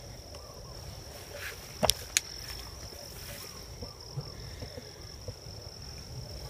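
Insects trilling steadily at one high pitch, with two short sharp clicks a quarter second apart about two seconds in.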